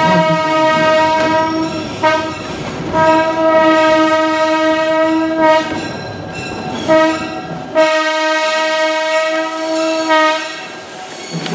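Diesel locomotive air horn sounding a single steady tone in four blasts, long, long, short, long: the standard grade-crossing signal. The rumble of the moving train runs underneath and fades out shortly before the last blast ends.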